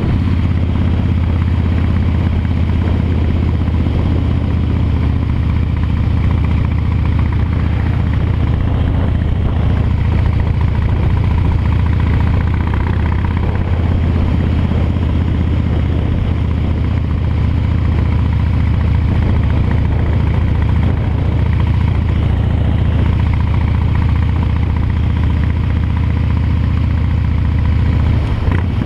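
Harley-Davidson V-twin engine running steadily as the motorcycle cruises at an even speed, a deep rumble with no revving.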